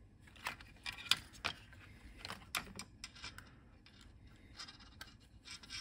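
Small irregular clicks and scrapes as the opened plastic case and circuit board of an Amazon Ring Chime are handled, with the sharpest clicks about a second in.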